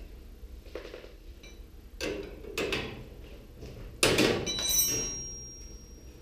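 Sheet-metal parts of a gas stove clanking and knocking as it is taken apart, a few knocks in the first three seconds and a louder clatter about four seconds in that leaves a short metallic ring.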